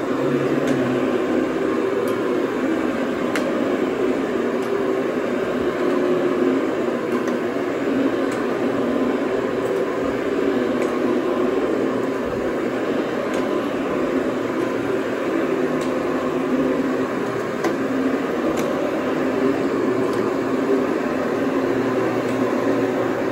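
Counter-rotating brush (CRB) carpet machine running steadily, its motor and brushes agitating carpet during encapsulation cleaning.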